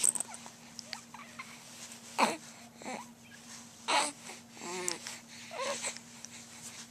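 Baby making short fussing sounds: breathy squeaks and a wavering whimper in separate bursts about two, four, five and six seconds in.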